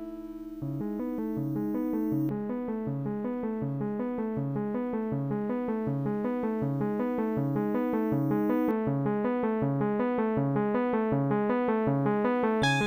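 Electronic music made in Renoise: a fast, repeating pattern of keyboard-like synthesizer notes over a regular pulsing bass note and a held tone, coming in about half a second in and slowly growing louder.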